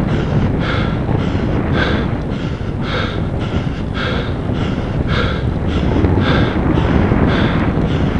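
A cyclist panting hard from the effort of a steep climb, in a steady rhythm of roughly a breath in and out each second, over a steady low rumble.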